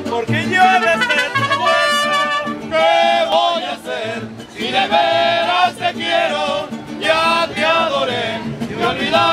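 Mariachi band playing: trumpets carry the melody over accordion, strummed vihuela and a pulsing guitarrón bass.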